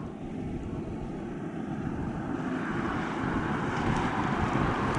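Wind buffeting the microphone with a low rumble, and a rushing noise that swells from about halfway through.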